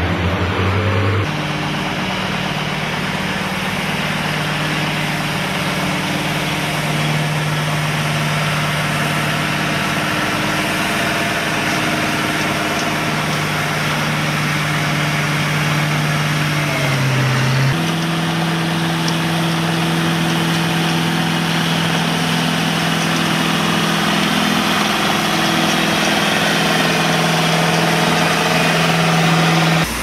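Heavy diesel engines of chip-seal road equipment running steadily at a constant speed. The engine note changes abruptly about a second in and again just past halfway, as a different machine takes over.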